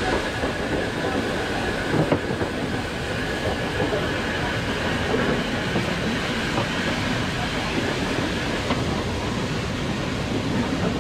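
Hunslet 0-6-0 saddle tank steam locomotive running slowly over jointed track and pointwork, a steady rumble with the wheels clicking over rail joints and a knock about two seconds in.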